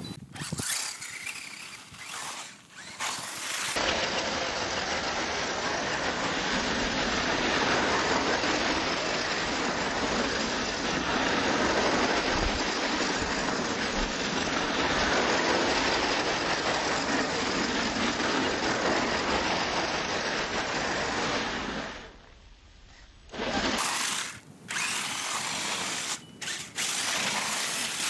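Axial SCX10 Deadbolt RC crawler's electric motor and gear drivetrain whining steadily as it drives, dropping away briefly near the end before picking up again in shorter spurts.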